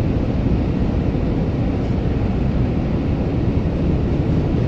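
Steady road noise inside a moving car's cabin: a continuous low rumble of tyres and engine with no change in level.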